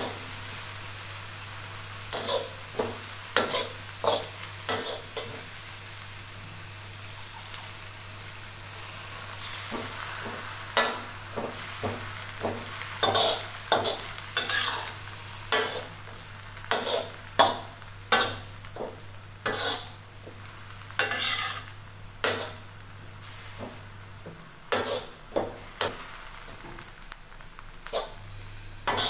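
Metal wok spatula scraping and clinking against a wok at irregular intervals while shredded cabbage stir-fries, over a steady sizzle of frying.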